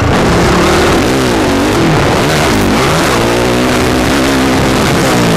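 Honda 250 motocross bike's engine, heard close up from on the bike, revving hard at race pace. Its pitch rises and falls several times as the throttle opens and shuts and the gears change.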